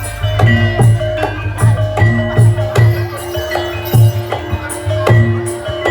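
Live percussion music: a regular low drum beat with repeated ringing metallic pitched notes over it, typical of the Javanese gamelan that accompanies a barongan dance.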